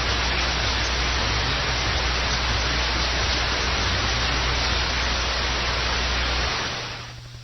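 Steady static hiss with a low hum beneath it, as from a receiver picking up no clear signal. The hum drops out near the end and the hiss quickly fades away.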